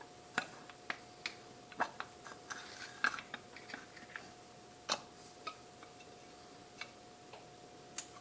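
Light metal clicks and taps from hands handling and fitting parts on a Honda CBR1000F motorcycle engine's crankcase as the shifter-cover gasket and cover go on. The clicks are scattered, with a quick cluster about two to three seconds in and single sharper clicks near the middle and the end.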